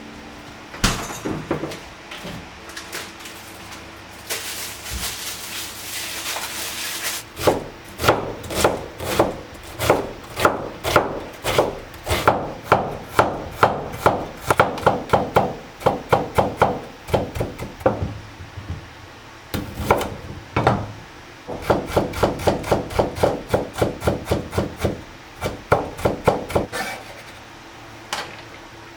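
Kitchen knife chopping on a wooden cutting board in two steady runs of about three strokes a second, with a pause between them. A few seconds of scraping noise come before the first run.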